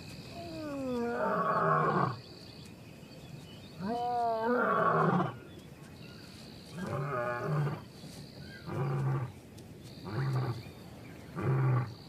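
A lion roaring in a full roaring bout: two long, moaning roars that fall in pitch, then a run of four shorter grunting roars about a second and a half apart. Insects call behind it with a steady high tone and pulsing chirps.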